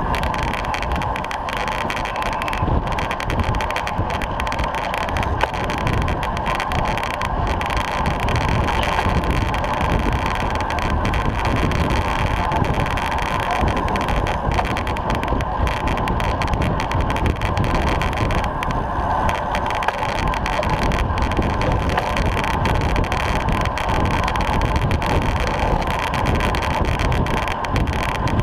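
Steady wind rush and tyre-on-tarmac road noise from a road bike at about 25 mph, picked up by a rear-mounted GoPro riding in a bunch of cyclists.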